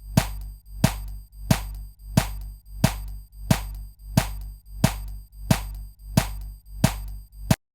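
Edited electronic percussion audio loop played back in a DAW: a sharp click-like hit on every quarter-note beat at 90 BPM, about one and a half hits a second, twelve in all, each with a low tone swelling under it. It stops abruptly near the end.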